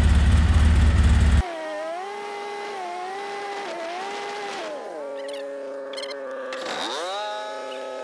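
ATV (quad) engine running: a loud low rumble close by for the first second and a half, then, after a sudden change, the engine's pitch rising and falling with the throttle as it rides, dropping sharply and climbing again near the end.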